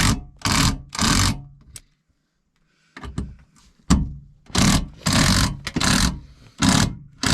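Power driver running in short repeated bursts, driving screws that fasten a refrigerator base plate to a truck sleeper floor. There are a few quick bursts, a pause of about two seconds, then several more.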